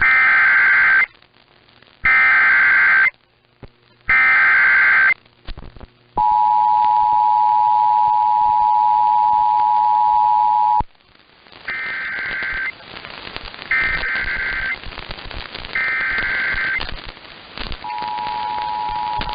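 Emergency Alert System tones relaying a severe thunderstorm warning. First come three one-second bursts of SAME header data, buzzy digital squawks that encode the alert. Then the 853/960 Hz two-tone attention signal holds for about four and a half seconds, and a second, quieter set of three header bursts is followed near the end by the two-tone signal again.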